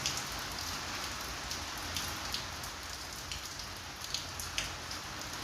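Steady hiss with faint, scattered small clicks as a screwdriver backs out the screws holding a washing machine's gearbox.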